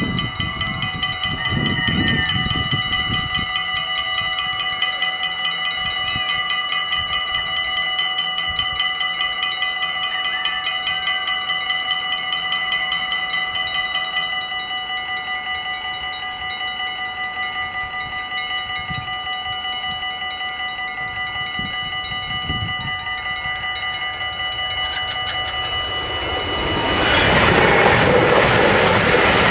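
Dutch level-crossing warning bells ringing rapidly and steadily as the half barriers lower, the ringing growing quieter about halfway through. Near the end an NS FLIRT electric train passes, its rushing wheel and rail noise swelling loud over the bells.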